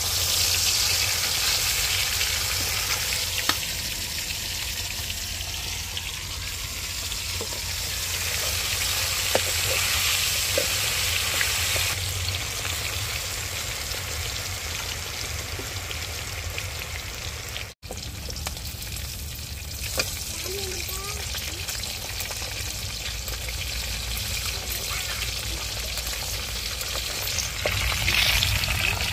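Marinated chicken pieces frying in hot oil: a steady sizzle with a few light clicks. The sound drops out for an instant about eighteen seconds in.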